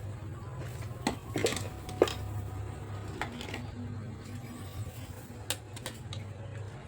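Scattered light clinks and taps of small metal parts and tools being handled, over a steady low hum; the sharpest tap comes about two seconds in.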